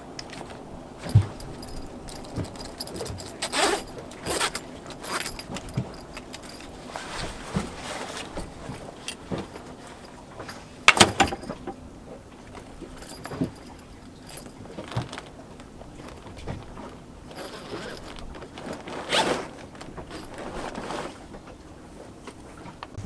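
Zip of a sailboat's mainsail cover being undone, in several separate pulls, with rustling fabric and a few small knocks in between.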